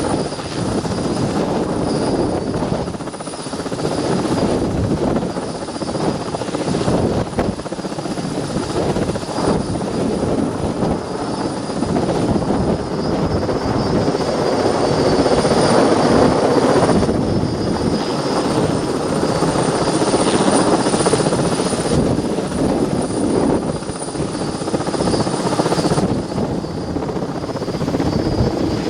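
Helicopter running with its rotor chop over a high, steady turbine whine, growing louder around the middle and easing off after.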